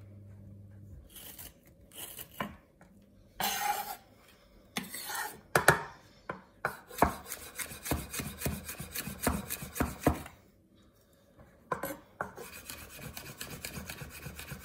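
Chef's knife cutting a green chilli on a wooden chopping board. First a few scattered knocks and a short scrape of the blade, then fast chopping, about five taps of the blade on the board a second, broken by a short pause before it starts again.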